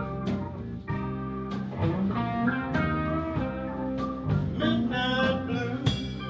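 Blues band playing live, with a guitar line over the band and a steady beat.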